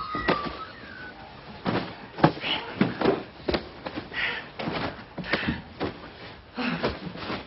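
A string of irregular knocks and thuds, with short snatches of voice between them.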